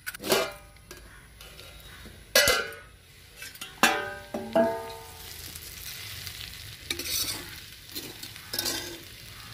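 A steel lid and a metal spoon clank against an iron kadhai a few times, once with a brief metallic ring. Then a metal spatula stirs and scrapes sliced arbi (taro root) frying over a steady low sizzle.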